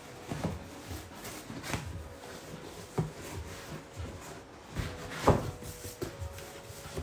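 Cardboard box and packaging being handled and pulled apart, with irregular knocks and scrapes; the sharpest knocks come about three and five seconds in.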